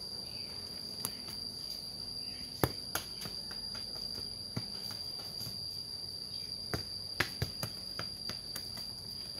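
A steady, high-pitched insect drone, over which a football is kicked with bare feet: sharp thuds about two and a half seconds in, again near three seconds, and a few more around seven seconds.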